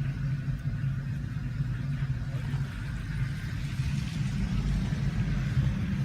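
A vehicle's engine and road noise heard from on board while driving, a steady low rumble.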